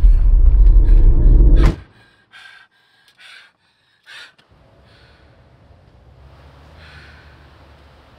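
A loud low rumble that ends abruptly with a knock, as a car door shuts, under two seconds in. Then the quiet inside a car: a few short rustles and a woman's heavy, sighing breaths over a faint hum.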